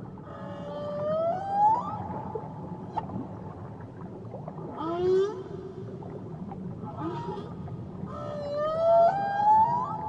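Humpback whale song recorded underwater: three rising, whooping calls, the first near the start, one around five seconds in, and a longer one near the end. A steady low hum of sea noise runs underneath.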